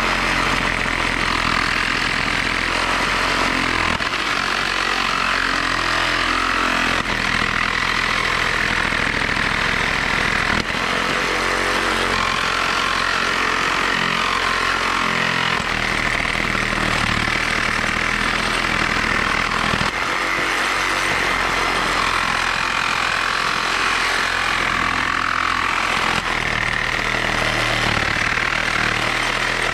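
DeWalt 20-volt cordless reciprocating saw running without a break, its general-purpose 6-inch Diablo blade cutting through steel deck screws flush under a 2x6 board.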